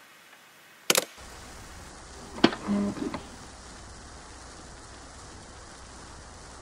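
Record turntable: a loud sharp click about a second in as the stylus comes down, then a steady low hum and surface noise from the stylus riding in the record's groove. About a second and a half later there is a second sharp click followed by a few short low notes.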